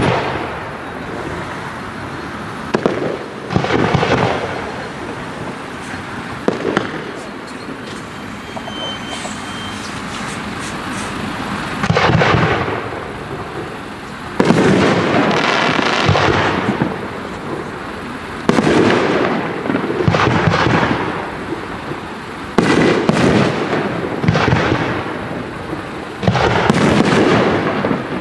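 Aerial firework shells bursting, one after another. Only a few bursts come in the first half; from about halfway they come thicker and louder, several in quick runs.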